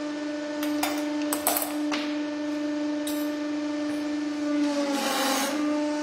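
Hydraulic press pump humming steadily while the ram crushes a small copper pot, with a few sharp cracks and crunches of metal giving way in the first two seconds. About five seconds in, the pump's pitch dips under load with a burst of noise.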